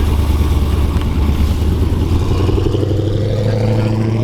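A vehicle's engine running loud and deep. About two and a half seconds in, its note climbs a little and then holds steady.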